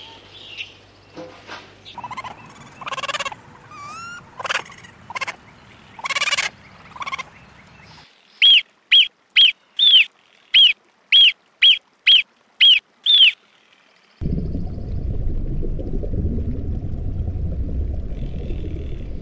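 A marmot giving about ten sharp, high alarm whistles, roughly two a second, each rising then falling in pitch. Before them come a few seconds of other varied animal calls; after them a loud, steady, low rushing noise.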